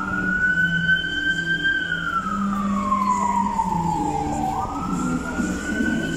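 Emergency-vehicle siren wailing in a slow rise and fall: it holds high, slides down over a few seconds, then climbs quickly again about four and a half seconds in. A low hum of street traffic runs underneath.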